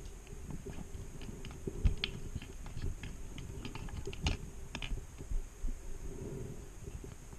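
Irregular small clicks and knocks from a diver's hands handling an underwater GoPro rig, heard through the camera's waterproof housing, over a low underwater rumble.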